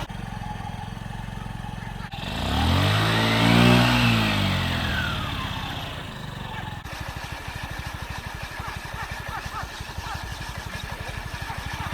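Honda Ruckus scooter's small single-cylinder four-stroke engine running: it revs up and falls back about two to five seconds in, then idles with a fast, even putter.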